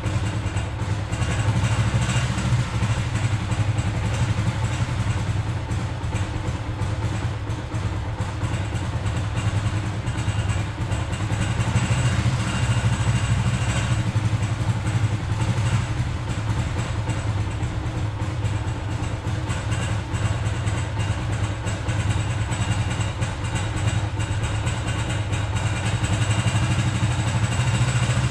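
Motorcycle engine idling cold on choke after a month or two unused, its loudness rising and easing slightly. It is not yet warmed up and stalls if the throttle is opened much.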